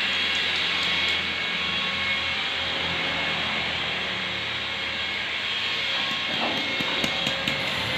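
Steady machine noise of a power tool or machine running without a break, with a few light clicks near the end.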